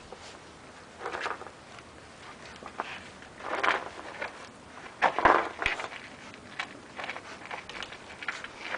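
Šarplaninac puppies eating from a shallow dish: irregular short eating and lapping noises, with the loudest cluster about five seconds in.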